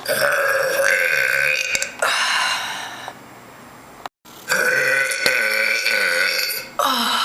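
A woman burping after drinking fizzy drinks: two long, drawn-out burps of about three seconds each, the second starting about halfway through.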